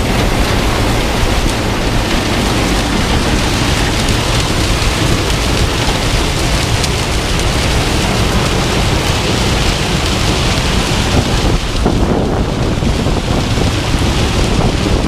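Combine harvester running steadily in the field, a dense, even rushing noise over a low engine hum.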